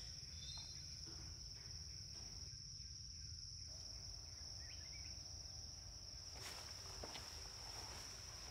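Quiet room tone: a faint, steady high-pitched tone with a low hum beneath it, and a few soft knocks about two-thirds of the way through.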